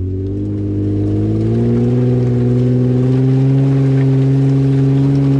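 Jeep Gladiator engine accelerating: its pitch climbs about a second and a half in, then holds steady at the higher speed.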